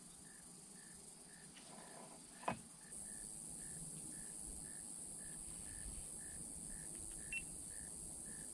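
A cricket chirping faintly and evenly, about two chirps a second. A single short knock sounds about two and a half seconds in, and a steady high hiss sets in about a second later.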